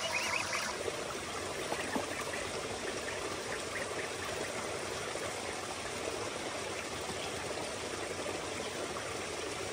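Shallow stream trickling steadily over rocks.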